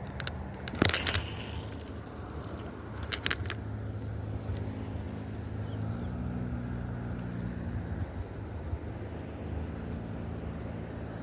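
Steady low hum of an engine, with a sharp noise about a second in and a quick cluster of clicks around three seconds.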